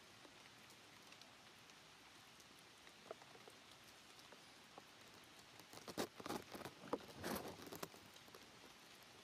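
Faint crackling and rustling of a dry twig and dry leaves being handled, mostly a dense run of sharp clicks lasting about two seconds after the middle, over faint background hiss.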